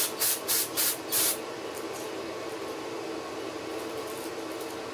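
Aerosol carburetor cleaner sprayed into a small-engine carburetor in five quick hissing bursts in the first second and a half, then a few faint short spritzes, blowing debris out of the jet passages. A steady low hum runs underneath.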